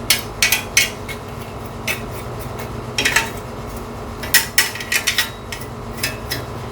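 Light metallic clicks and clinks from handling the opened PC DVD drive and its steel top lid, about a dozen sharp taps at uneven intervals, some in quick clusters.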